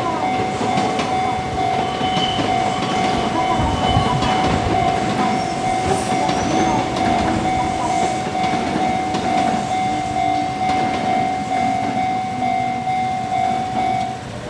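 Japanese level-crossing alarm ringing steadily while a Kintetsu electric train passes through the crossing, its wheels rumbling and clacking over the rail joints.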